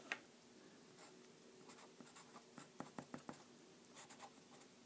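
Felt-tip pen writing on paper: faint, short scratchy strokes and light taps of the tip as letters are written.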